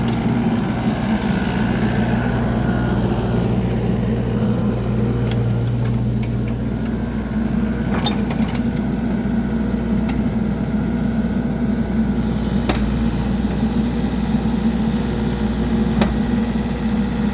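Engine of a piece of construction machinery idling steadily, with a few sharp clicks.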